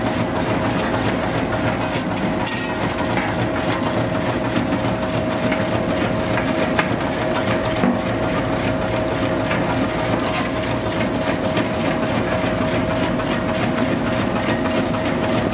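A cassava brush washing and peeling machine running steadily. Its drive hums at one pitch under the dense clatter of cassava roots tumbling over the rotating brush rollers, with the hiss of the water spray.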